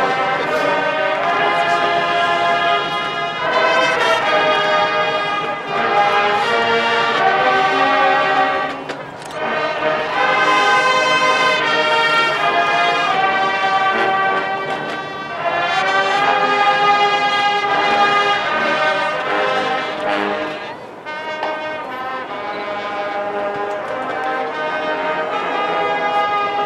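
Large college marching band playing, led by its brass section. It plays long held chords in phrases, with short breaks between them.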